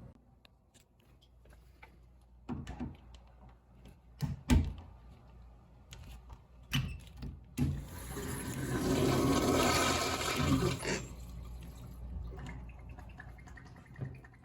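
A few sharp clicks and knocks, then about eight seconds in a Moen commercial urinal's automatic flush valve flushes: a rush of water lasting about three seconds that tails off.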